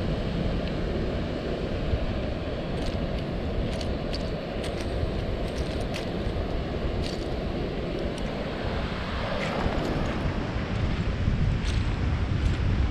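Wind rumbling on the microphone over a steady rush of surf, with scattered light clicks.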